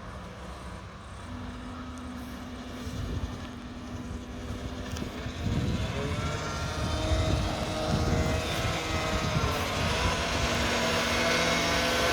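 Mack McNeilus front-loader garbage truck's diesel engine running as the truck approaches, growing steadily louder, with a clear rise in loudness about halfway through.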